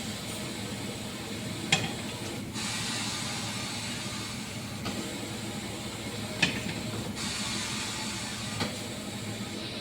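Tyre-changing machine at work on a wheel: a steady hiss with a few sharp metallic clicks, three times.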